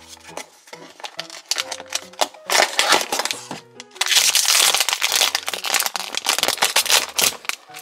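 Packaging of a toy blind box being opened: crinkling and crackling, loudest and densest from about four seconds in to near the end, over light background music.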